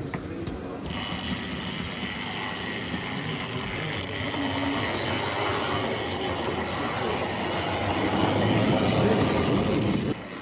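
OO gauge model locomotive running on the layout's track: a steady motor whine with running noise that grows louder as it draws near, then drops away suddenly near the end.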